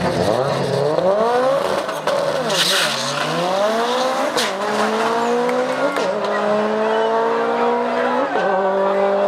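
Mitsubishi Lancer Evolution X's turbocharged four-cylinder at full throttle on a quarter-mile drag run. Its pitch climbs through each gear and drops back at every upshift, several shifts in all, each later gear climbing more slowly.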